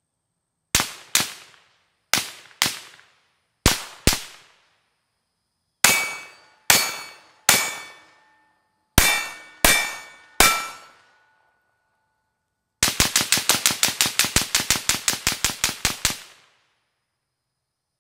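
Suppressed 5.56 AR-style rifle (Griffin Armament DL5 suppressor on a 16-inch Geissele Super Duty) heard from downrange. Three quick double shots come first, then two groups of three shots, each followed by a faint metallic ring like hits on steel targets. Near the end comes a rapid string of about twenty shots in three seconds.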